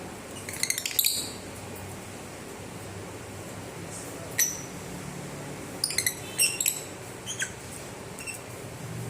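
Lovebirds giving short, sharp high-pitched chirps in scattered bursts, a quick cluster about half a second in, more around the middle and a few single chirps near the end.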